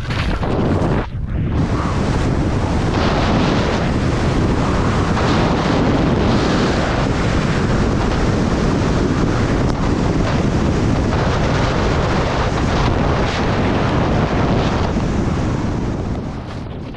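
Wind rushing hard over a helmet or chest-mounted action camera's microphone during a fast ski descent, mixed with skis hissing through snow. It dips briefly about a second in and fades near the end.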